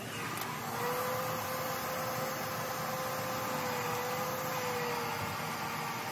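Hair dryer blowing air into an inflatable pool's valve: a steady rush of air, with a thin steady whine over it for most of the time that fades out near the end.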